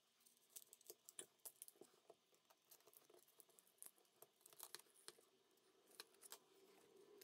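Faint, scattered clicks and scratches of a thin metal opening tool being worked along the edge of a cracked Xiaomi Mi 5C screen, prying the glued display away from the frame.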